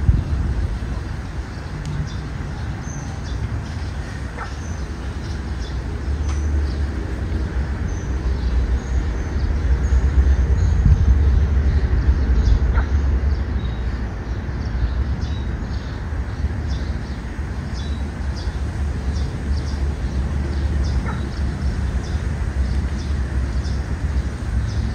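Wind buffeting the microphone as a low rumble that swells and fades, loudest about a third of the way in, while small birds chirp in short high notes throughout.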